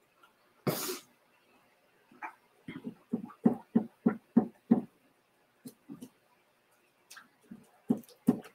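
A dog close by giving a run of short, low vocal sounds, about three a second for a couple of seconds, with a few more near the end. A short breathy burst of noise comes about a second in.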